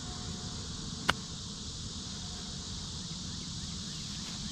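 A golf iron striking the ball on a tee shot: one sharp click about a second in, over a steady outdoor hiss.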